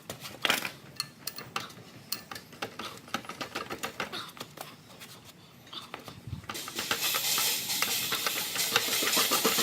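Metal clinks and knocks of tools and parts being handled and worked against each other. About seven seconds in, a louder steady hiss sets in, with rapid clicking over it.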